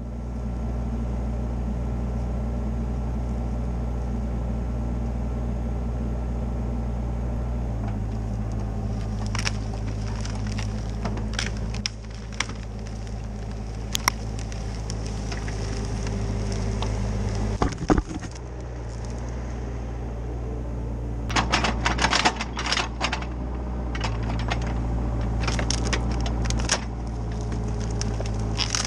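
Caterpillar 304CR mini excavator's diesel engine running steadily, its note stepping up and down several times as the arm works, while dry branches and logs dragged in on the rope crackle and snap, with a thick run of cracking about three quarters of the way through.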